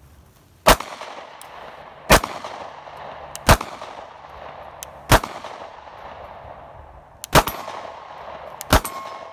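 Sig P365 9mm subcompact pistol fired six times in slow, steady succession, roughly one shot every one and a half seconds, each report echoing briefly.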